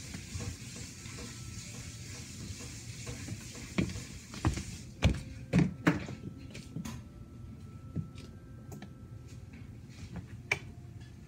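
Steady hiss of rain, then a cluster of five or six loud knocks and thumps about four to six seconds in. After them the hiss drops away, leaving scattered light clicks.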